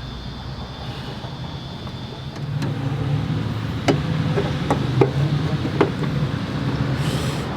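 Several sharp metallic knocks from tools working on a car, over a steady low mechanical hum that grows louder a couple of seconds in.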